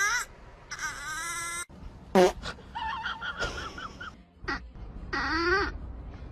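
Several drawn-out animal calls, each under a second, whose pitch bends up and down, with a short downward-sweeping squeal about two seconds in.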